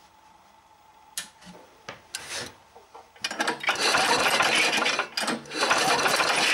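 Small single-cylinder engine of a motorized tow sled being started: a couple of short mechanical sounds, then the engine catches about three seconds in and keeps running. It starts very strangely because the throttle-governor linkage sits toward idle instead of full throttle while the engine is stopped.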